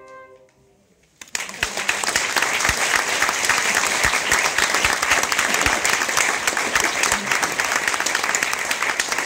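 The flute trio's final chord fades out, and after a short pause an audience breaks into steady applause just over a second in.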